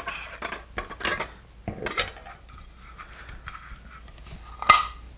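Metal cookware being handled: camping cook pots lifted off a stainless steel wire grill and set down, giving light clinks and scrapes. One sharper ringing clink comes near the end.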